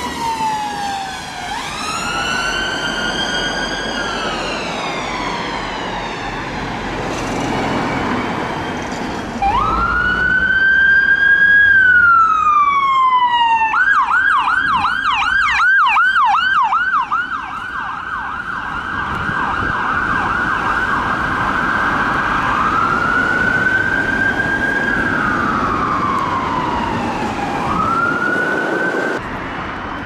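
Ambulance siren on emergency response. It starts as a slow wail rising and falling, then about halfway in switches to a fast yelp of about three sweeps a second for several seconds, then returns to the wail. It stops shortly before the end, leaving road traffic noise.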